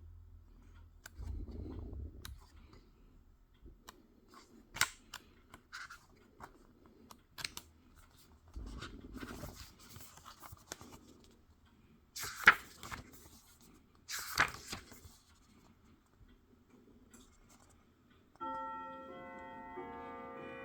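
Blu-ray cases and their plastic packaging being handled: scattered clicks and rustles with three sharp snaps. Near the end, background music of bell-like tones begins.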